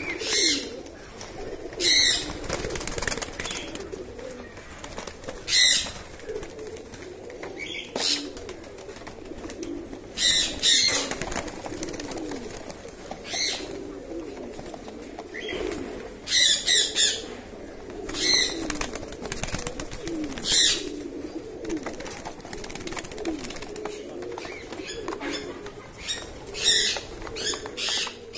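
Many caged pigeons cooing over one another without a break. Short bursts of wing flapping come every couple of seconds, sometimes two or three in quick succession.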